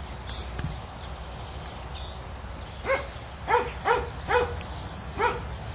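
A dog barking five times in quick succession, starting about three seconds in, over a steady low background noise.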